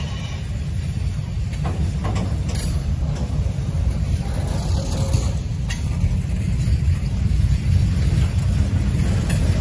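Loaded centre-beam lumber flatcars of a freight train rolling past: a steady low rumble of wheels on rail, with a few faint clicks.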